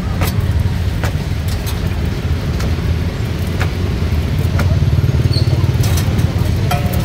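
Steady low engine rumble of passing or idling road traffic. Over it come a few short, sharp slaps of roti dough being flung and pressed onto a stainless-steel counter.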